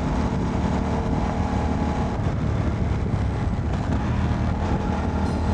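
Motorcycle engine running steadily at an even cruising speed, heard from the rider's helmet microphone.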